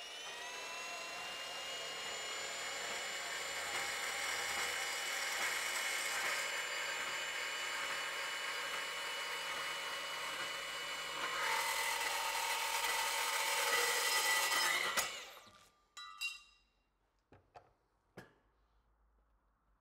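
Milwaukee M18 CBS125 cordless band saw running and cutting through steel trunking: a steady whine with the rasp of the blade, the note shifting about eleven seconds in. The saw stops suddenly about fifteen seconds in, and a few light knocks follow.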